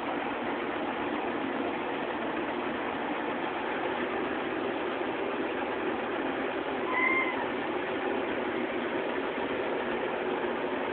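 A domestic cat gives one short meow, rising and then falling in pitch, about seven seconds in, over a steady background noise.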